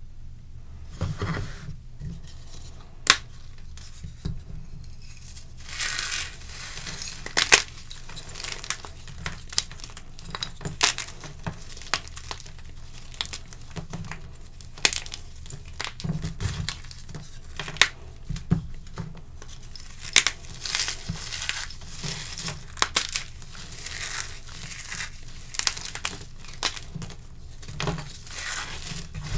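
Blocks of gym chalk and dried dyed cornstarch being broken and crumbled by hand. A steady gritty crunching runs throughout, broken by sharp snaps at irregular moments as chunks crack apart.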